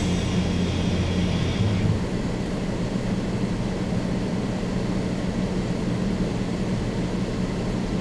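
Music that stops about two seconds in, then the steady low rumble of a car's interior with the engine idling at a stop.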